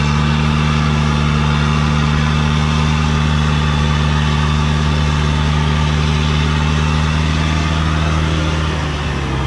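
Loaded Thaco Foland truck's diesel engine running at steady revs while its rear wheels spin and dig into sand and mud: the truck is bogged down. The engine eases off slightly near the end.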